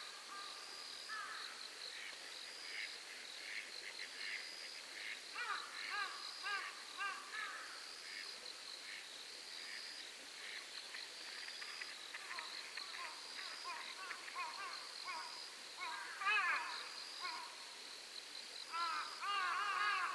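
Night-time animal chorus by a lake: an insect trilling high and even in short phrases that repeat all through. Over it come clusters of rapid chirping calls about five seconds in, around sixteen seconds, and again near the end.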